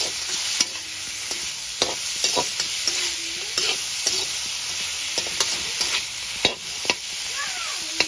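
Chicken pieces and onions sizzling in oil in a metal kadai while a metal spatula stirs them. The spatula scrapes and gives irregular sharp clacks against the pan over the steady sizzle.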